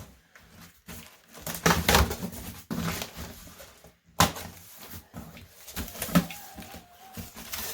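Cardboard shipping box and styrofoam packing being opened and handled: irregular rustling and scraping with several sharp knocks.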